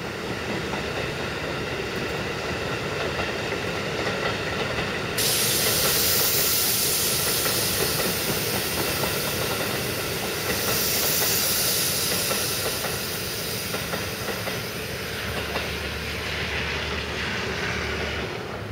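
Keikyu electric commuter train running past on the main line with a steady rumble of wheels on rail. About five seconds in a sudden loud hiss joins it and runs on until near the end.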